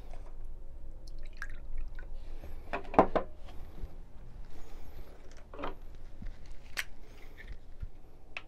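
Water poured from a plastic gallon jug into a drinking glass. About three seconds in comes a solid knock as it is set down on the wooden table, then a few lighter taps and clicks.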